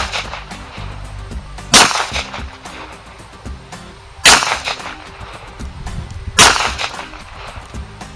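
Three pistol shots from a Taurus TCP .380, about two seconds apart, each with a short echo, over background funk music.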